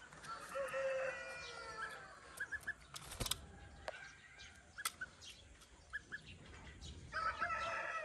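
Poultry calls: one drawn-out call lasting about a second and a half near the start, short chirping notes scattered through, and a few sharp clicks around the middle.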